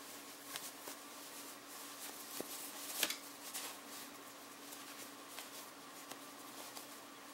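Soft rustling and brushing of a seamless stretch tube scarf being twisted and rolled by hand, with scattered light taps and one sharper rustle about three seconds in, over a faint steady hum.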